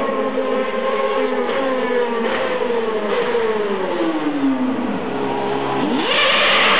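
McLaren-Mercedes Formula 1 car's V8 engine running as the car comes down the street, its pitch falling steadily as it slows. Near the end it revs up sharply and gets louder.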